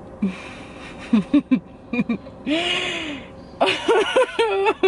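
A woman laughing in several breathy bouts, the laugh getting more voiced and pitched toward the end.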